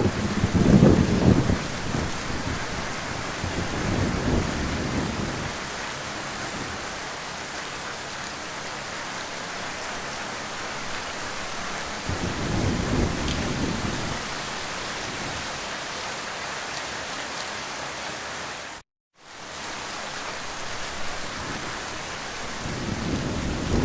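Heavy rain falling steadily, with low rolls of thunder rumbling under it near the start, about four seconds in, around twelve seconds and again near the end. The sound cuts out completely for a moment about nineteen seconds in.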